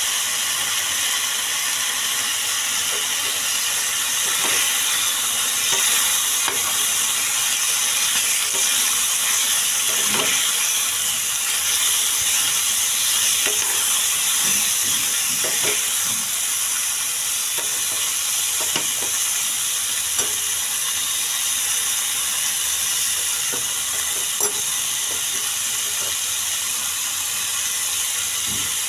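Chicken pieces frying in a pan, with a steady sizzle throughout. A metal spoon stirs them, with scattered scrapes and knocks against the pan mostly in the first two-thirds, growing sparse near the end.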